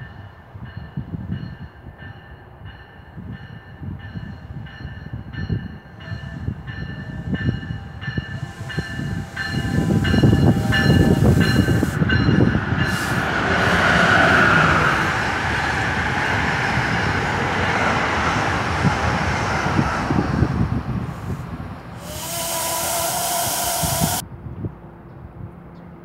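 Amtrak's Crescent, led by an ACS-64 electric locomotive, passes at speed with a loud rumble of wheels on rail and rushing air, while an NJ Transit bi-level push-pull train draws into the station with a bell ringing in regular strokes. Near the end a loud hiss of air runs for about two seconds and cuts off sharply.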